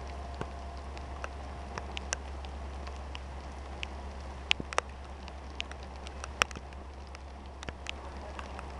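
Raindrops plinking irregularly on the car's window sill, with some sharper single taps, over a steady hiss of rain and a low hum.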